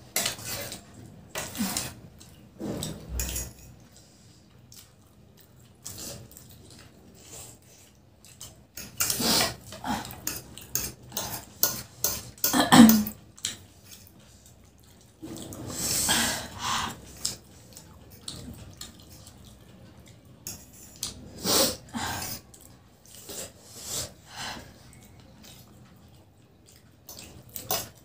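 Close-up eating sounds of two people eating noodles: forks clicking and scraping on plates at irregular moments, with brief slurping and chewing sounds in between.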